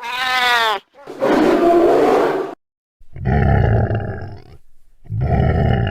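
A series of monster roar sound effects: a short pitched howl, then a rough growl, then two deep rumbling roars with falling tones over them, separated by brief gaps.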